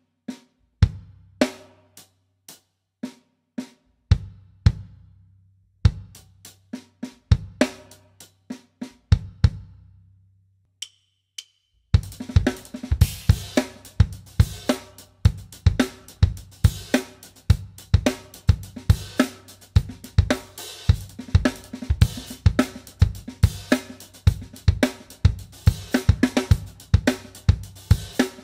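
Drum kit playing a sextuplet lick of right-right-left-left hand strokes on cymbals and drums tied together with bass drum beats. The phrases come slowly, with gaps between them at first. After a short pause about halfway through, the lick is played over and over at a fast tempo.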